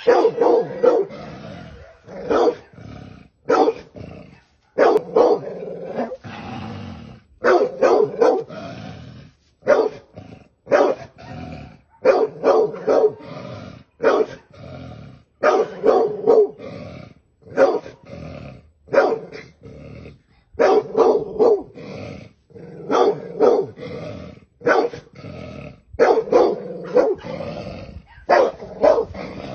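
Bully-breed dog barking hard and repeatedly in quick clusters of two to four barks, a cluster every second or two, with some growling: a dog holding off a snake.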